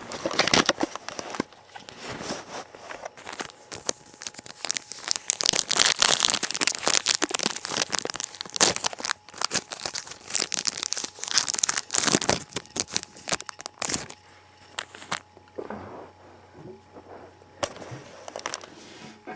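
Foil trading-card booster pack wrappers crinkling and tearing as they are handled and opened, a dense run of crackling that thins out to a few soft rustles about fourteen seconds in.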